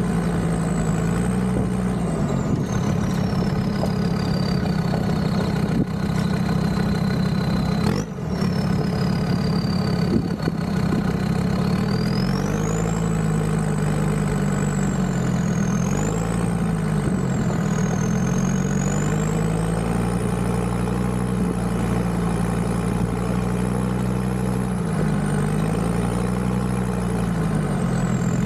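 Land Rover Discovery 2's Td5 five-cylinder turbodiesel engine running under way, its note dipping and rising as the revs change, with a high whine that glides up and down with it. A brief break about eight seconds in.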